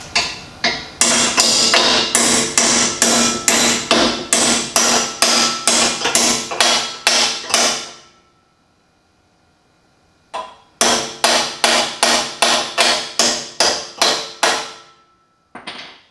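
Hammer blows at about three a second, driving a 63 mm tube scrub bar onto a 4WD's side step, with the metal ringing after each blow. A long run of blows stops about halfway, then after a short pause a second run follows, with a single last blow near the end.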